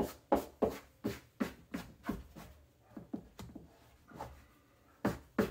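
Dough scraper scraping and tapping on a floured wooden countertop in a run of short strokes, about three a second, then a pause and two more strokes near the end.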